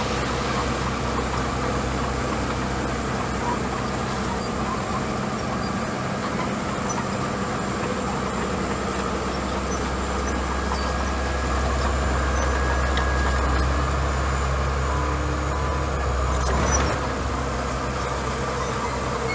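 Small crawler bulldozer's diesel engine running steadily while it pushes gravel. The low engine note grows louder for several seconds past the middle, then drops back just after a brief sharp noise.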